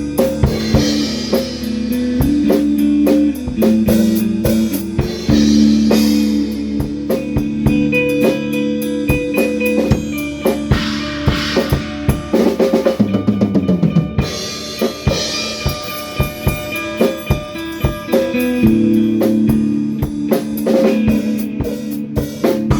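A rock band jamming an instrumental: a drum kit keeps a steady beat with cymbal crashes under sustained guitar and bass chords. About halfway through the drums play a rapid fill and a low note slides down in pitch, then the groove picks up again.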